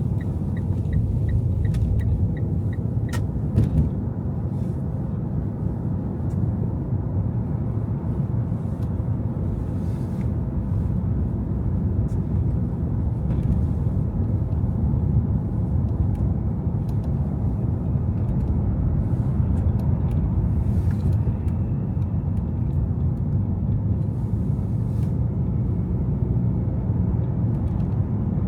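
Car driving on a snowy city street: a steady low rumble of engine and road noise. A rapid light ticking, about three a second, runs for the first couple of seconds and then stops.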